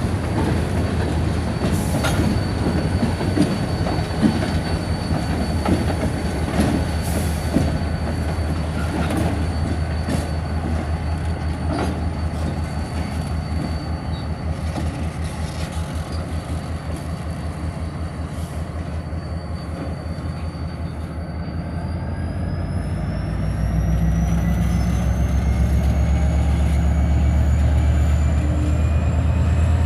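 Diesel locomotive engine running as it pulls a string of loaded centerbeam flatcars, with scattered clanks and clicks from the cars and a steady high wheel squeal. About two-thirds through, the engine gets louder and a high whine rises steadily in pitch.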